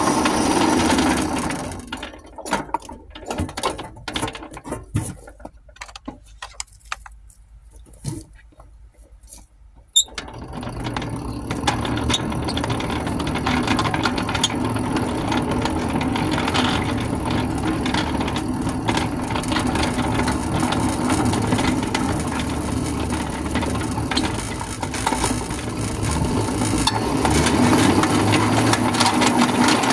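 Ridable miniature railway train running along small-gauge track, a steady mechanical hum with wheel clicks over the rail joints. About two seconds in it goes much quieter for several seconds with scattered clicks, then after a sharp click near the middle the steady running noise returns.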